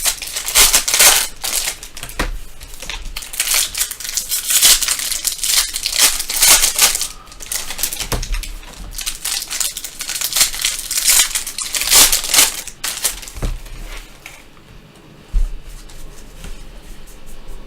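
Trading card pack wrappers being torn open and crinkled by hand, with loose, irregular rustling and crackling that eases off after about 13 seconds. A single sharp knock comes about 15 seconds in.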